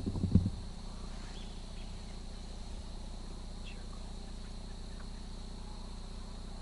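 Insects trilling steadily in a high, even band over a low steady hum, with a few faint short bird chirps. A brief low bump or rustle comes in the first half-second and is the loudest thing heard.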